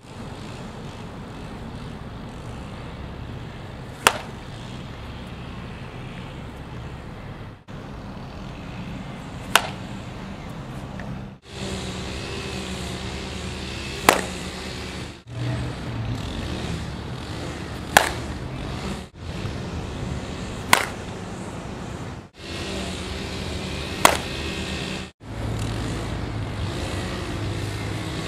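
Softball bat striking balls in batting practice, off a tee and from tossed pitches: six sharp cracks a few seconds apart. Under them is a steady outdoor background hum that drops out briefly between clips.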